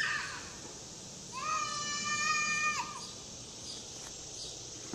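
A young child's high-pitched squeal, one held call lasting about a second and a half, starting about a second and a half in.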